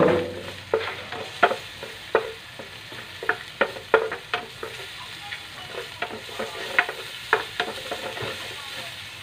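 Chopped garlic and onion sizzling in a nonstick frying pan with browned pork, a steady frying hiss, while a spatula stirs them, scraping and clicking against the pan at irregular strokes.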